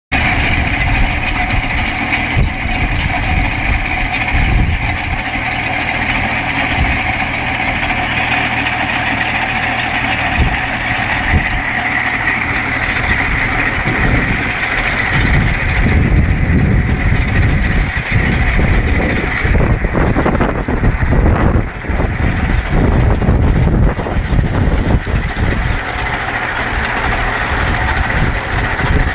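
Trenching machine's engine running continuously, with a steady high whine over the engine note that fades about two-thirds of the way through, after which the engine sound becomes more uneven.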